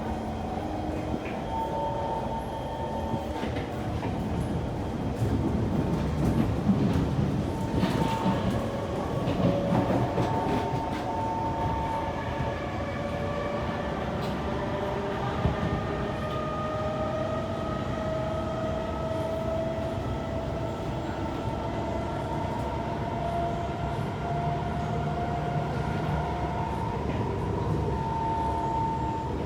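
Kawasaki C151 metro train in motion: running rumble and wheel clatter under a motor whine whose pitch climbs slowly through the second half as the train gathers speed. The uploader calls the motor noise loud and bad on this worn, ageing train.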